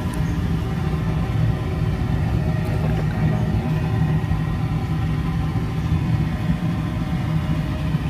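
Homemade oil-drum steam boiler for sterilising oyster-mushroom baglogs, running on an LPG burner at the boil (about 100 °C): a steady low rumble with no breaks.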